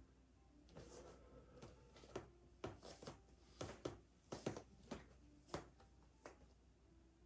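Faint handling noises: a dozen or so irregular small taps and rustles, thickest in the middle, in a small room.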